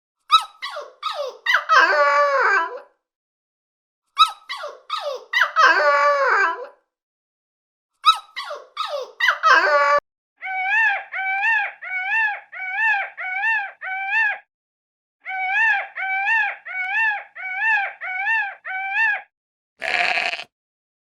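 Animal calls: a squeaky phrase of short falling yelps ending in a longer wavering cry, heard three times. Then two steady runs of short, evenly spaced calls, about two a second, each rising and falling in pitch. A short harsh call comes near the end.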